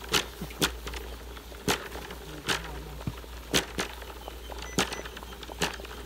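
A wok of water at a rolling boil over an open fire: irregular sharp crackles and pops, about ten in six seconds, over a steady low hum.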